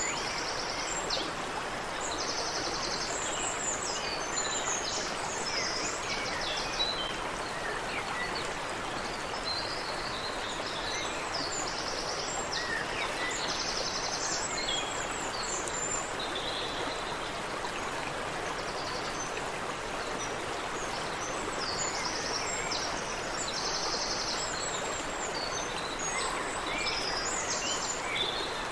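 Water running steadily in a creek, with birds calling over it: short, fast, high trills repeating every few seconds among scattered chirps.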